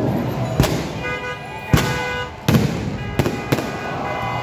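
Aerial fireworks bursting overhead: about five sharp bangs, irregularly spaced.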